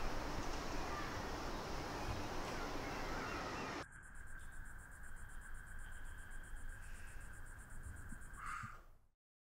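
Faint room ambience that cuts off abruptly about four seconds in to a quieter hush with a thin steady high tone and fast, faint, even ticking. Near the end comes a short breathy puff as a single birthday candle is blown out, then the sound drops to silence.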